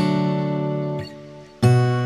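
Background music: acoustic guitar chords. One chord rings and fades, the music drops away briefly about a second in, then a new chord is struck near the end.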